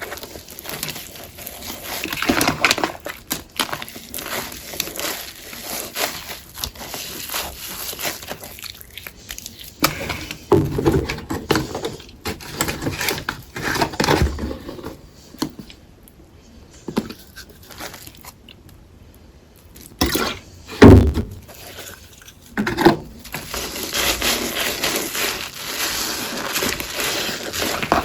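Crunchy gym chalk paste being crushed and worked on a sponge: irregular crackling and scraping. It goes quieter for a few seconds past the middle, then comes two louder thuds.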